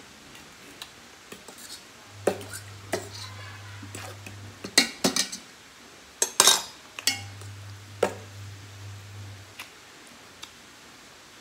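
Spoon and fork clinking and scraping against a plate and an enamel pot while eating, in a string of separate clicks with a few louder scrapes about five and six and a half seconds in.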